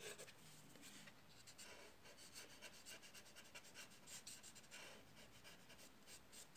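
Faint, repeated scratchy strokes of a paper blending stump rubbing soft pastel into rough Fabriano paper, evening out the edge of the drawing.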